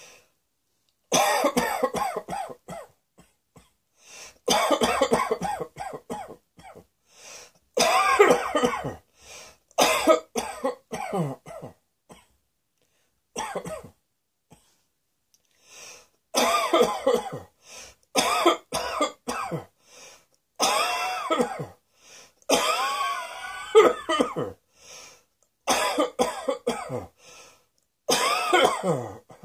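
A person coughing in repeated fits, about ten of them, each a run of several quick voiced coughs with short pauses between fits; a few fits trail off in a falling tone.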